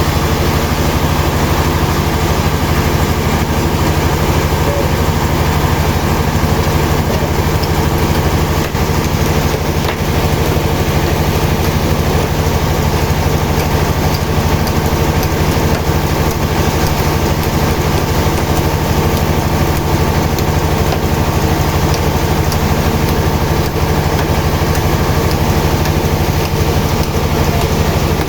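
An engine running steadily at constant speed, an even drone that does not rise or fall.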